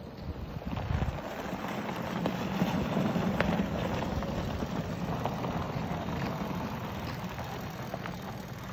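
Lifted golf cart driving in turns on packed snow: its drive and knobby tyres make a steady running noise that picks up about a second in.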